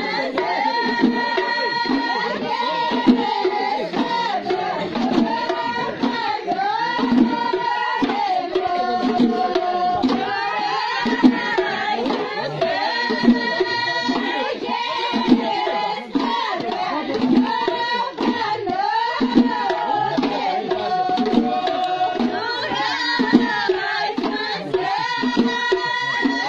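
Amazigh ahwash music: voices singing over a steady beat of large hand-played frame drums.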